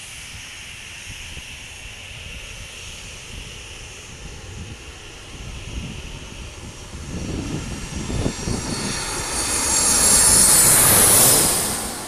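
Twin-engine jet airliner on final approach passing low overhead, its engine noise building to a loud peak about ten seconds in and then easing off. A high engine whine bends down in pitch as it goes over.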